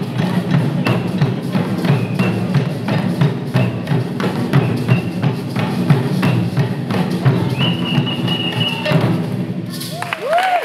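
Fast, steady drumming accompanying an African dance, many drum strokes packed tightly, with a few short high held notes over it. Near the end the drumming stops and the audience breaks into cheering.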